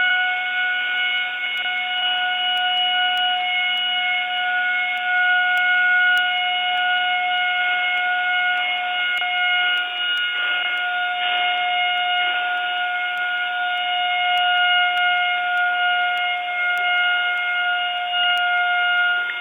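Planet Fitness lunk alarm sounding, a steady siren-like tone that holds one pitch without wavering, heard over a phone line.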